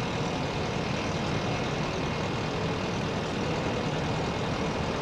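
Heavy truck engine idling with a steady rumble.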